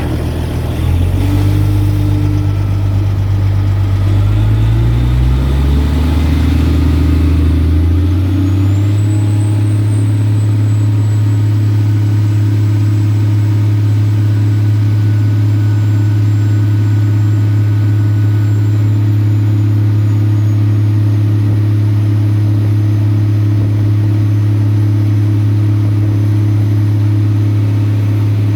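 Crane engine revving up in steps over the first eight seconds or so, then held steady at high revs, as under working load.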